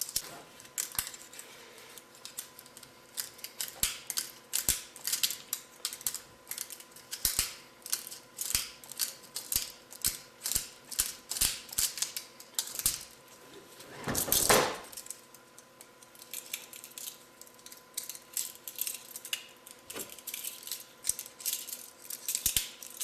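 Handcuffs being worked back and forth against a metal seat-belt buckle: repeated metallic clicks and rattles of the cuffs' chain and master joint, about two a second, with one louder scrape about fourteen seconds in. It is the joint being stressed to break the cuffs apart.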